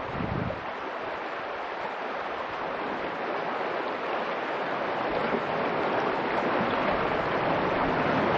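A shallow, rocky river rushing over stones: a steady rush of water that grows gradually louder.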